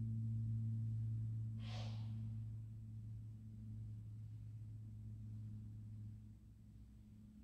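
A low steady hum with fainter overtones, fading out near the end, with a short breathy hiss about two seconds in.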